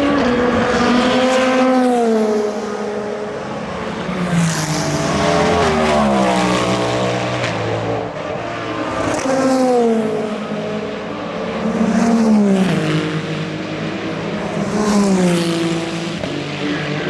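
Endurance race cars passing one after another at speed, about five passes, the engine note of each falling in pitch as it goes by.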